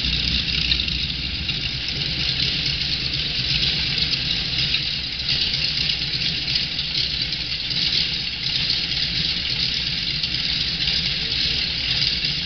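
Pratt & Whitney R-1340 radial engine of an AT-6 Texan running at idle as the plane taxis, a steady low throb under a loud hiss.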